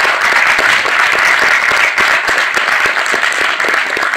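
Audience applauding: dense, steady clapping from many hands, loud.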